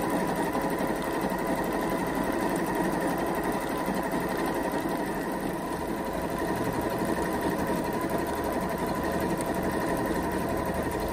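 Janome 1050DC computerized sewing machine running steadily at speed, stitching a decorative stitch.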